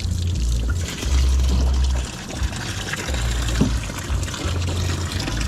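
Water running and splashing steadily, with wind buffeting the microphone in uneven low gusts.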